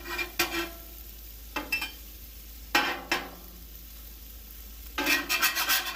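Breakfast food sizzling steadily on a Blackstone flat-top griddle, while a metal spatula scrapes across the steel cooktop in a few short strokes to flip the pancakes, with a quick run of scrapes near the end.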